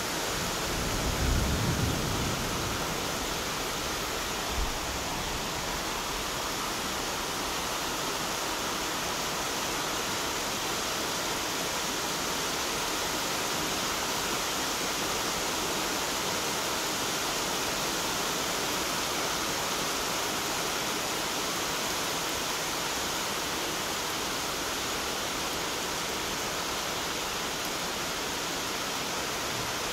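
Heavy rain pouring steadily, a dense even hiss. There is a short low rumble about a second in and a single thump about four and a half seconds in.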